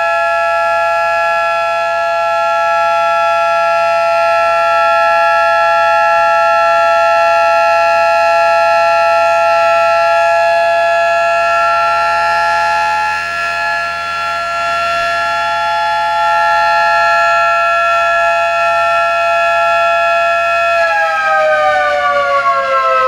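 220 V AC industrial electric motor siren wailing continuously at a steady high pitch. Near the end its pitch begins to glide down.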